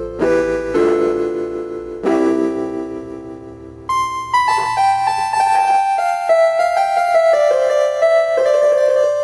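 Yamaha CP11 electronic keyboard playing: a few struck chords that fade away, then from about four seconds in a quick falling run of single notes higher up.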